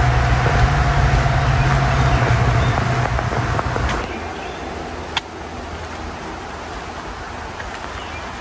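Road traffic from a busy highway: a steady low engine drone and tyre hiss with a slowly falling whine as a vehicle passes. It cuts off abruptly about four seconds in and gives way to a quieter, steady hiss with a single sharp tap a second later.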